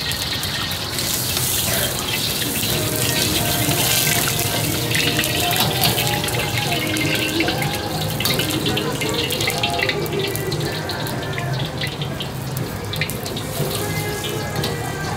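Hot oil sizzling and crackling in a steel wok over a lit gas burner: a steady hiss full of fine pops, over the burner's low steady rumble.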